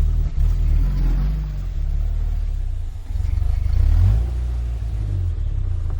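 Off-road vehicle engine running under load and revving, a low rumble that swells twice, first about half a second in and again around three to four seconds in.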